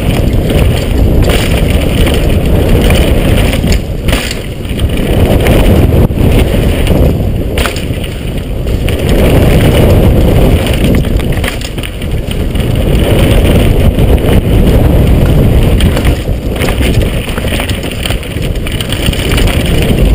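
Wind rushing over the microphone and tyres rumbling on a dirt trail during a downhill mountain-bike run. The bike knocks and rattles over bumps, and the rush swells and dips every few seconds.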